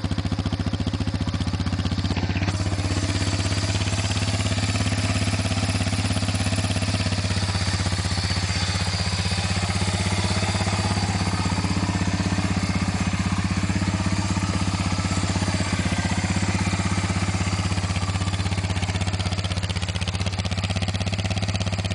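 1991 Honda Fourtrax 300 4x4 ATV's single-cylinder four-stroke engine idling steadily, heard up close.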